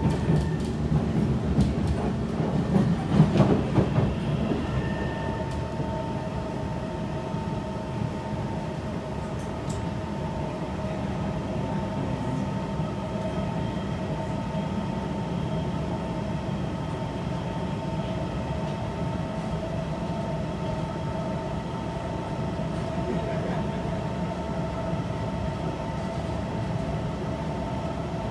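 Kawasaki C151 metro train heard from inside the carriage while running along an elevated track: a louder rumble with a few clacks in the first few seconds, then an even rumble of wheels on rail under a steady whine that holds its pitch as the train cruises.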